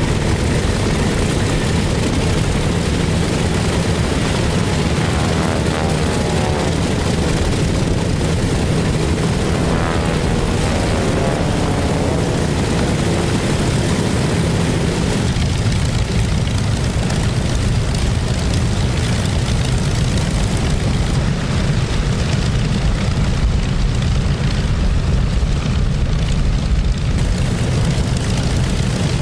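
Both Pratt & Whitney R-2800 eighteen-cylinder radial engines of a Grumman F7F Tigercat running steadily at ground idle just after start-up, with a deep propeller rumble.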